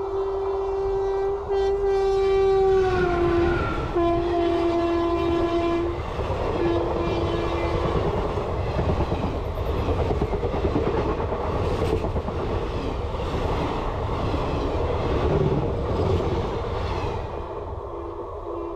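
A passing Indian express train. Its locomotive horn is held as the train approaches and drops in pitch about three seconds in as the locomotive goes by, then sounds on for a few more seconds. The coaches follow with wheels rumbling and clattering over the rail joints for over ten seconds, fading away as the last coach passes.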